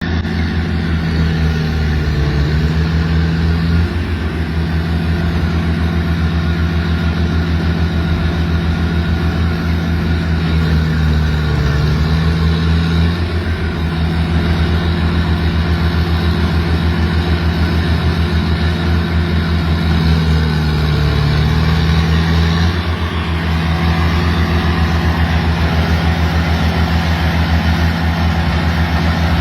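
Engine of a pistachio harvesting machine running steadily with a fast, even pulse, its pitch sagging briefly three times before recovering.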